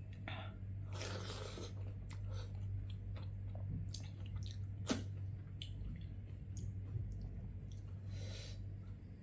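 Close-up chewing of food, with small wet clicks and a sharp click about five seconds in, over a steady low hum.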